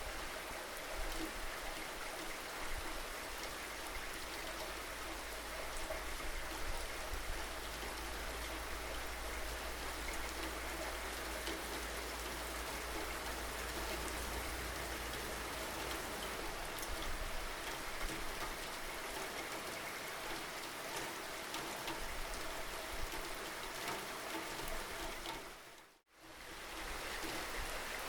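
Steady rainfall, an even hiss with scattered individual drops ticking on a surface. Near the end it fades out to silence for a moment and comes straight back.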